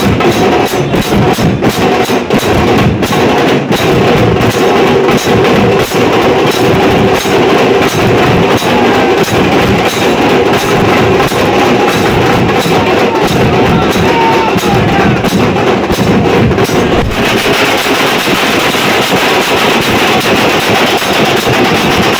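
Loud, steady procession drumming with large brass hand cymbals clashing in rhythm, typical of a Maharashtrian dhol-tasha troupe, over a dense crowd. The sound turns harsher and brighter about seventeen seconds in.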